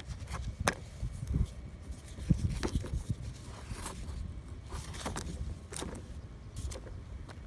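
Handling noise of disassembled crankcase breather parts: irregular clicks, knocks and scrapes of hard plastic and metal pieces being picked up and set down, over a low rumble.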